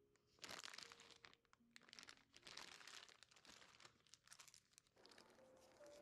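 Clear plastic bags of keycaps crinkling as they are handled, in two main spells of rustling: one starting about half a second in and another around the middle.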